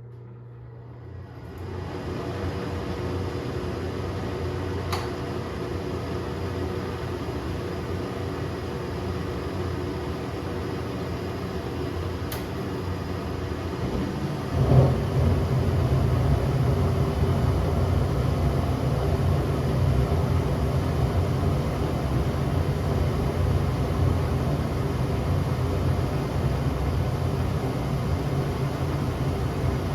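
1996 Heil gas furnace starting up with its front cover off. A fan motor spins up and runs with a steady hum, with a couple of faint clicks. About halfway through, the gas burners light with a sudden thump, and the running sound becomes louder and deeper.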